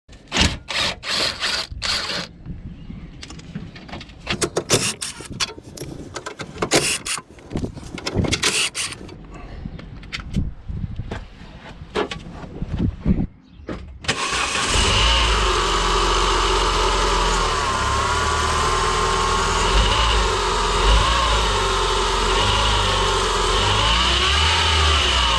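Scattered knocks and clicks of handling for about fourteen seconds, then a Renault Megane R26's 2.0-litre turbocharged four-cylinder engine starts and idles steadily, with a thin high whine and a wavering tone over the idle.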